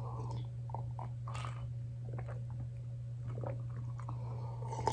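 A person drinking iced water from a glass mason jar close to the microphone: repeated gulps and swallows with small scattered clicks, over a steady low hum.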